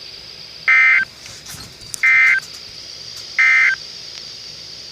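Emergency Alert System end-of-message data bursts received over the radio: three short, shrill digital squawks about 1.4 seconds apart, signalling the end of the alert, with a faint radio hiss between them.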